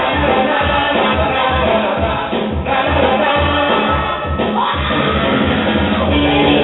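Music: a song with singing over a steady drum beat.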